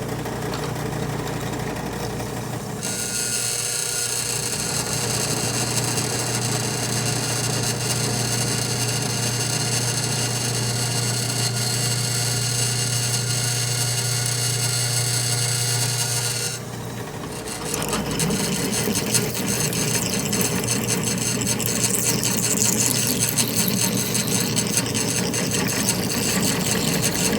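Reliant drill press running, its bit cutting into a thick steel wheel weight: a steady motor hum with a high whine over it. The sound dips briefly about two-thirds through, then carries on rougher and noisier.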